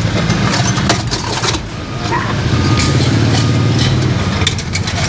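A motor vehicle's engine running at idle close by, a low steady throb that grows louder about halfway through, with a few sharp knocks.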